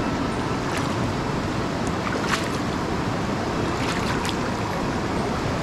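Tirthan River, a mountain river with a strong current, rushing steadily, with a few faint ticks.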